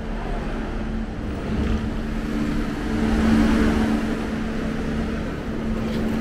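A steady low mechanical hum over a constant background rush, swelling a little about three seconds in.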